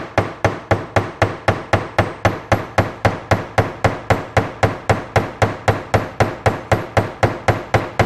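Rapid, even taps of a small plastic-tipped hammer, about four a second, driving a brass bushing into the eye of a classic Mopar E-body door hinge to seat it snugly.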